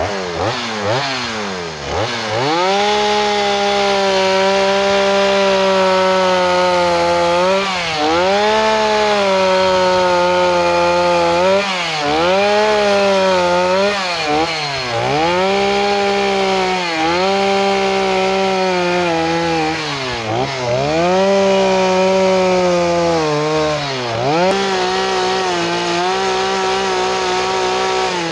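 Gas chainsaw running at high revs while carving into a log, its engine note dipping each time the chain bites into the wood and climbing back as it clears, over and over. It revs up from low about a second in.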